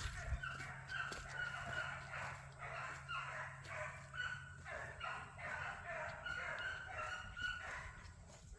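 A pack of beagles baying together as they run a rabbit, a dense run of overlapping, repeated calls.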